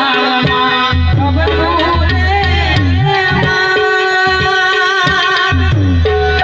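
Gujarati devotional folk music: a melody held in steady notes on a harmonium, with a tabla beating out the rhythm underneath.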